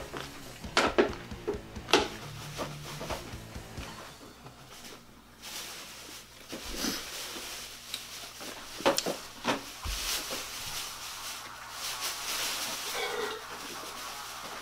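A person biting into and chewing a crusty toasted Cuban bread roll: short sharp crunches, loudest about a second and two seconds in and again around nine seconds in, between softer chewing.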